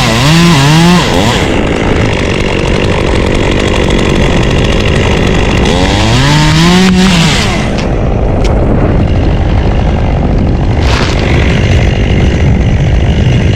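Two-stroke chainsaw running at full throttle, its pitch dipping under load in the first second. It revs up again for about a second around six seconds in, then stops. Heavy wind noise buffets the microphone throughout.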